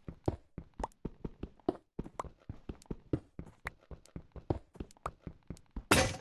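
A quick, irregular run of light knocks and clicks, about five a second, with a brief louder rush of noise near the end.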